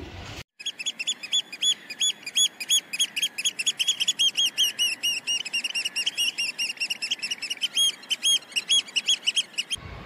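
Small birds chirping: a dense, even run of short high chirps, several a second, that starts and stops abruptly.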